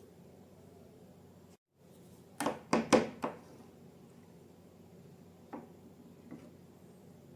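A quick cluster of four or five sharp handling knocks about halfway through, followed by two faint clicks.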